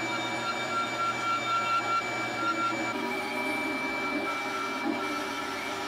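Rikon 10-305 bandsaw running with a steady whine while its blade crosscuts the end of an aspen block.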